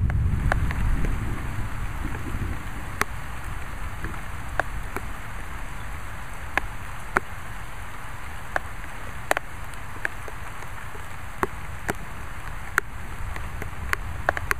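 Rain falling in a steady hiss, with single large raindrops ticking sharply and irregularly, roughly once a second. A low rumble fades out over the first couple of seconds.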